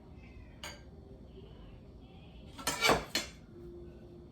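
Dishes and cutlery clattering: a light click about half a second in, then a louder cluster of clinks and knocks around three seconds in.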